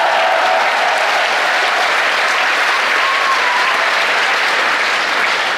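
Congregation applauding steadily, a dense even clapping from a large crowd.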